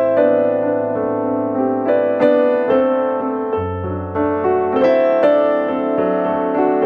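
Background music: a slow, gentle piano-like keyboard melody over held chords, with a new note or chord about every second.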